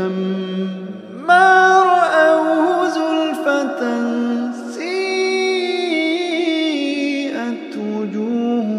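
A man's voice chanting Quran recitation in long, melodic held notes that waver in pitch. About a second in the voice climbs to a higher, louder note.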